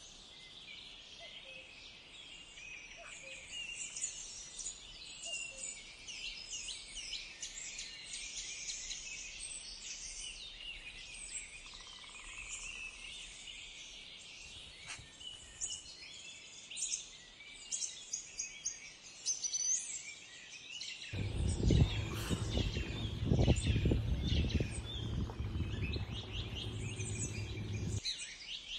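Many small birds chirping and singing. For several seconds in the last third a louder low rumble joins in, starting and cutting off abruptly.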